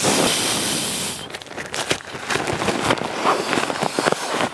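A breath blown into the mouth of a Nemo Vortex nylon inflation sack makes a loud rushing hiss for about a second. Then the sack crinkles and rustles as it is rolled and squeezed to push the air into a Nemo Tensor sleeping pad.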